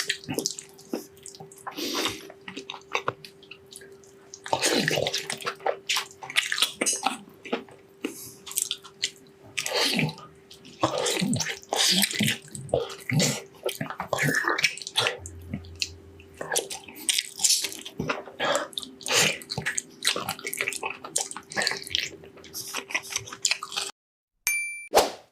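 Close-miked wet eating sounds: slurping, sucking and chewing of balbacua, a gelatinous Filipino beef stew, in quick irregular bursts. A faint steady hum runs underneath, and everything stops about a second before the end.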